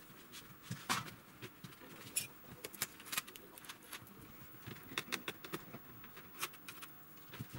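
Irregular light clicks, taps and scrapes of plastic and metal parts being handled on an opened LCD TV's sheet-metal chassis, as its protective frame is lifted off and the flat ribbon cables are moved.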